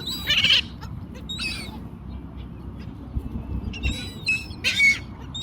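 Seagulls squawking: several short calls, the loudest about half a second in and again near the end, over a steady low background rush.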